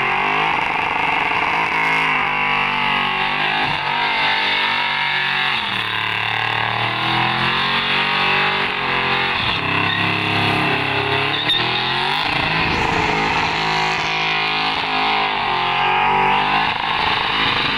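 Holden Commodore ute engine held at high revs through a burnout, revving up and down again and again, over the steady hiss of spinning, smoking tyres.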